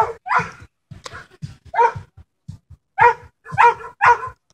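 A dog barking repeatedly: about six short, loud barks with uneven gaps, most of them in the second half.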